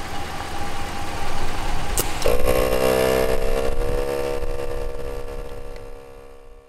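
ARB air compressor running while re-inflating tires. About two seconds in there is a sharp click, then a loud, sustained pitched tone that fades away over the next four seconds.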